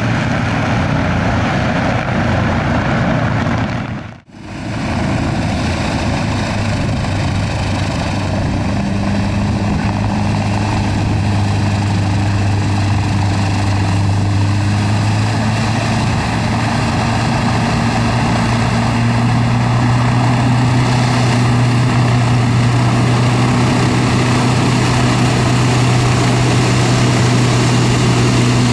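Single-engine hovercraft running, its lift fan and twin propellers making a loud, steady drone of air and engine noise. The sound drops out briefly about four seconds in, and from about eight seconds a steady deep hum holds under the rushing air.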